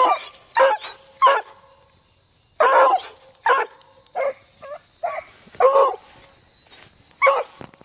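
Hunting dog barking repeatedly: about ten short barks at uneven intervals, with a pause of a second or so after the first few.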